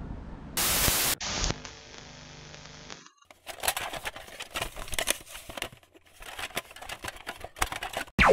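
VHS-style tape static effect: a loud burst of static about half a second in, steady hiss, then irregular crackling and pops, ending with a loud falling sweep.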